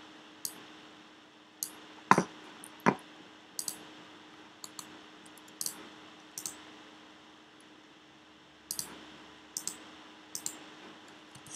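Computer mouse and keyboard clicks: about a dozen short, sharp clicks scattered irregularly, with two heavier knocks about two and three seconds in, over a faint steady hum.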